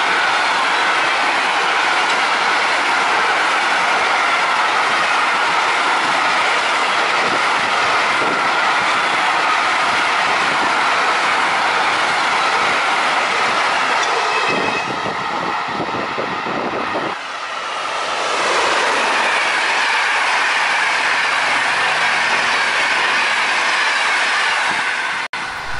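A long freight train of covered hopper wagons rolling past close by: a steady loud rumble and clatter of wheels on the rails, with high, drawn-out squealing from the wheels on the curve. In the last few seconds a passenger train of ÖBB coaches runs past on the near track.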